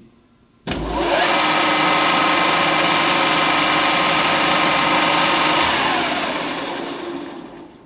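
Standard Modern 1333 gear-head lathe started at a fast spindle speed in high range: the headstock gearing and spindle come up suddenly and run loud and steady with a whine of several steady tones. Just under six seconds in it is shut off and spins down, fading out near the end.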